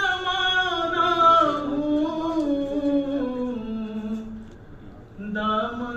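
A man's voice singing a naat unaccompanied through a microphone, with long held notes that slide slowly downward, a short breath pause about four and a half seconds in, then the next line beginning.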